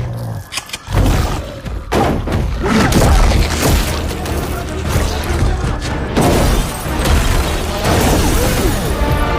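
Dense film sound-effects mix: music with heavy booms and crashing impacts over a deep rumble, dropping away briefly just after the start.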